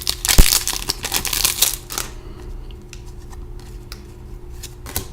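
A trading card pack wrapper being torn open and crinkled for about two seconds, with a sharp click a little under half a second in. Then a few soft clicks and rustles as the cards are handled.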